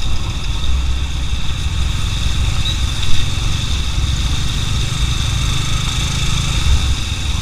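Motorcycle engine running steadily while riding, heard as a constant low rumble on the bike-mounted camera's own microphone, with one brief louder bump about three seconds in.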